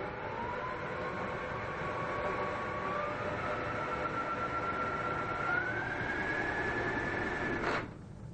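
Cordless drill spinning a homemade threaded-bar centrifuge loaded with a cup of epoxy resin: a motor whine that climbs in pitch in a few steps as the speed is raised, then cuts off suddenly with a click near the end. The spinning forces the resin down into the connector's pin bundle.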